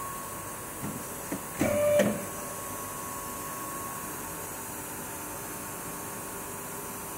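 Two-post car lift being lowered: a short whirr with a few clunks about two seconds in, then a steady hiss.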